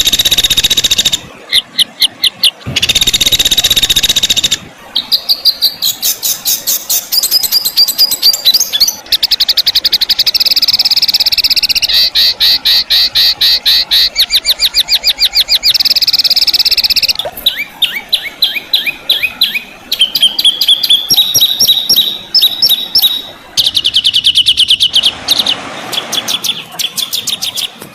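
Songbird tutor recording ('masteran') of fighter-style song: loud, high-pitched bursts of rapid repeated notes, rolling trills and harsh buzzy phrases, spliced one after another with abrupt changes.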